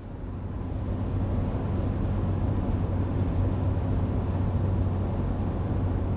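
Car driving at road speed, heard from inside the cabin: steady tyre and engine noise with a low hum, fading in over the first second.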